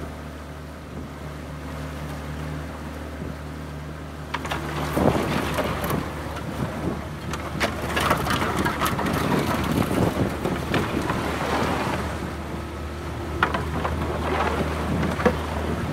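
A small boat under way through floodwater: a steady low motor hum, with water splashing and washing against the hull from about five seconds in.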